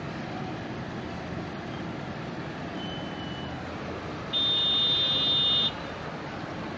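Steady road traffic noise, then about four seconds in a vehicle horn gives one loud, held, high-pitched honk lasting about a second and a half.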